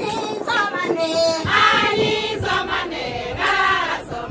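A group of women singing together in chorus, in sung phrases that rise and fall.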